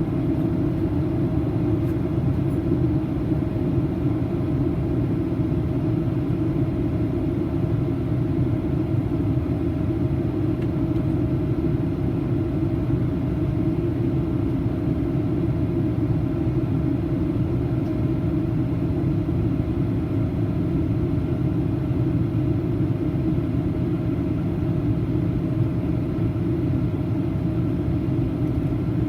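Steady cabin noise inside a Boeing 737-800 in flight: a low rumble of airflow and its CFM56-7B turbofan engines, with one faint steady tone above it.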